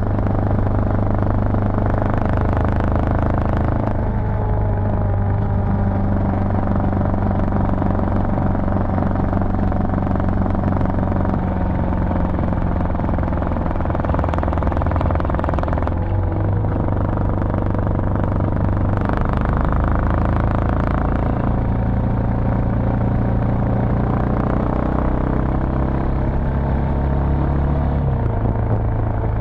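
Yamaha Serow 250's single-cylinder four-stroke engine running under way, its note stepping to a new pitch a few times as speed and gears change.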